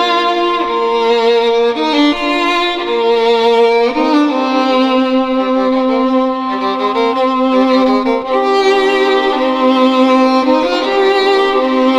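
Background music: a violin playing a melody of long held notes, often two at once.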